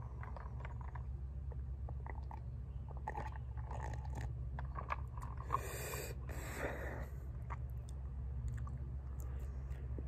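A person chewing and biting a slice of thin-crust pepperoni pizza close to the microphone, with small wet mouth clicks throughout. A short, louder rush of noise comes a little past the middle.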